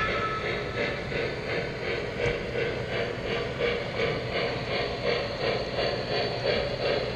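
O-gauge three-rail model train rolling along the track, with a regular clicking pulse about three times a second over a steady rolling rumble.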